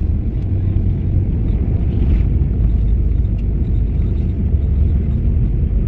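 Steady low rumble inside a jet airliner's cabin from its engines and tyres as it rolls along the ground after landing.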